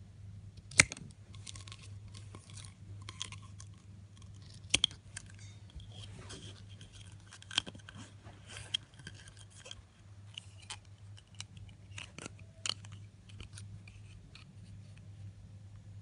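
Scissors snipping and clicking on a plastic drinking straw, with the straw handled between cuts. The snips are sharp and irregular: the loudest about a second in, a quick double snip near five seconds, and smaller clicks scattered after.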